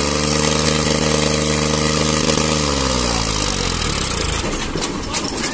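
Ford tractor's diesel engine running at steady high revs, which fall away about two and a half seconds in. Near the end come sharp cracking and clattering as the wheels go over bricks.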